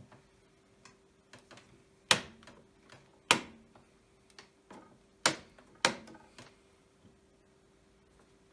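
Four sharp knocks, two close pairs a couple of seconds apart, as a hand marking stamp is set down and pressed while size markings are stamped onto leather helmet-liner pieces, with a few lighter clicks in between.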